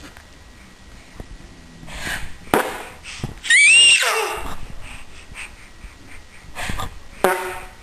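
Loud squeaking in short bursts. The loudest squeak, about three and a half seconds in, slides up in pitch and then drops away. A lower squeak comes near the end, and fainter rustling bursts come a little after the two-second mark.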